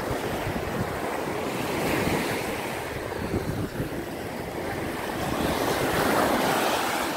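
Ocean surf washing up on a beach, with wind buffeting a phone's microphone; the rush swells about two seconds in and again near six seconds.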